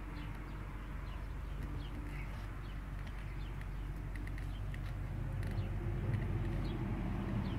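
Outdoor background: small birds chirping now and then over a steady low rumble that grows a little louder near the end.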